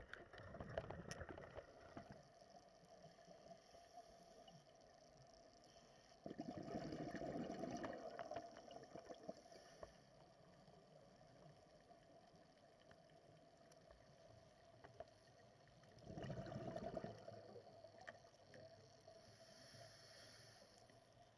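Scuba diver's regulator exhaling underwater: two bursts of bubbles, each about two seconds long and roughly ten seconds apart, with near silence between.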